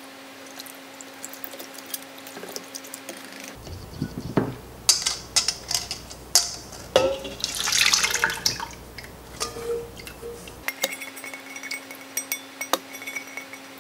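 Clinks and knocks of a whisk and a stainless steel mixing bowl, then a thick soup-and-broth mixture pouring from the bowl into the Instant Pot's steel inner pot, with scattered clicks of the bowl against the pot.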